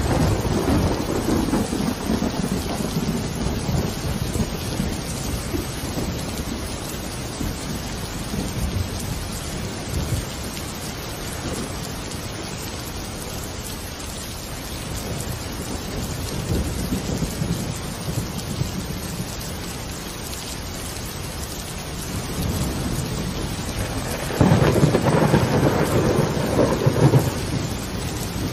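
Steady rain with rolling thunder: low rumbles at the start and a louder rumble near the end.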